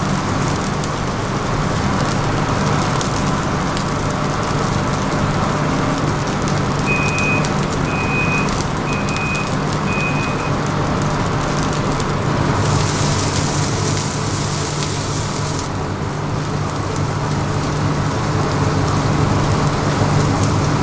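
Batter and toppings sizzling on a hot flat dosa griddle over a steady low hum. Four short high beeps sound about seven seconds in, and a loud hiss lasts about three seconds near the middle.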